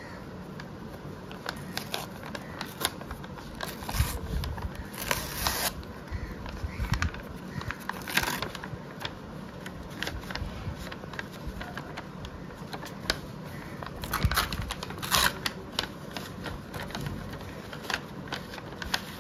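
Kraft-paper envelope being handled and torn open by hand: crinkling and crackling paper with a few longer tearing rips.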